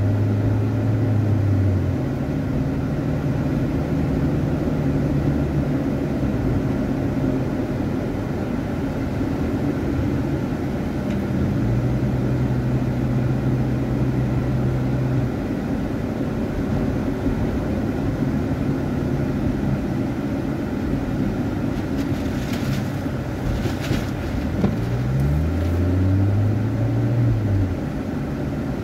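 Car engine and road noise heard from inside the cabin while driving, the engine note holding steady for stretches and then climbing in pitch near the end as the car speeds up. A few faint clicks come through a little before that.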